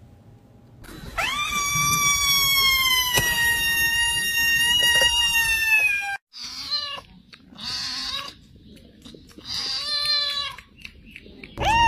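A cat's long drawn-out yowl lasting about five seconds, slowly falling in pitch, followed by several short meows, the later ones from a kitten.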